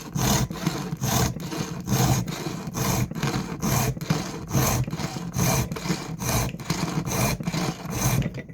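Round chainsaw file rasping across a chain's cutter tooth in steady back-and-forth strokes, about two a second, sharpening the tooth with a fresh file.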